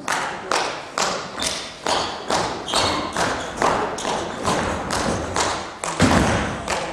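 Dance music played loud through a hall's speakers: a heavy, evenly spaced beat of about two hits a second, starting suddenly, with one bigger, deeper hit about six seconds in.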